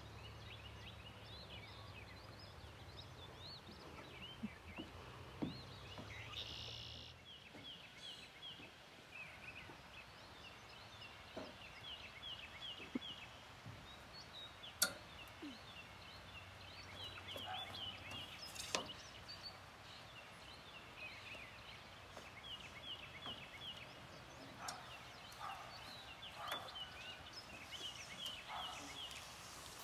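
Faint bird calls: a short, fast rattling call repeated every few seconds, with a few sharp knocks scattered through.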